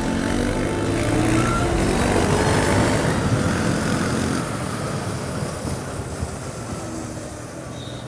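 Wind rushing past an electric motorcycle riding at about 50 km/h, mixed with the low engine hum of a bus being overtaken alongside. The hum is loudest in the first half and fades after about four and a half seconds as the bus drops behind.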